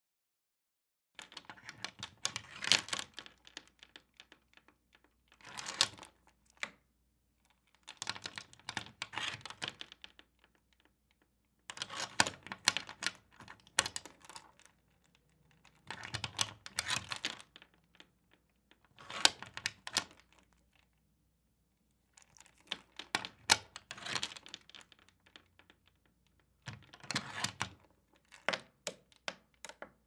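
Door chain lock being fumbled with and put into place: about eight bursts of clicking and rattling, each a second or two long, a few seconds apart.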